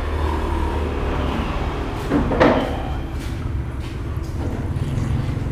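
A steady low background rumble, with one short, louder rising sound about two seconds in.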